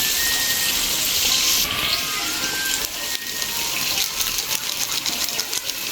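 Water running from a tap, then easing off about one and a half seconds in into lighter splashing with small clinks.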